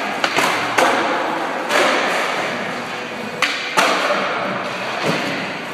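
Skateboard rolling on a hard skatepark floor, broken by several sharp pops and clacks of the board as tricks are popped and landed, each followed by the hiss of the wheels rolling away.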